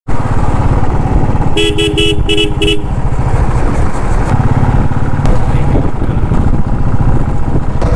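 Royal Enfield Classic 350's single-cylinder engine running under way with a steady low thump. About one and a half seconds in, a vehicle horn gives about five quick beeps.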